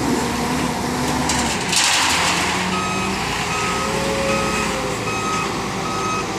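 A vehicle or machine's warning beeper sounds short, evenly spaced beeps of one pitch, about one every 0.6 seconds, starting a little under three seconds in. An engine runs steadily underneath, with a brief burst of hiss just before the beeping starts.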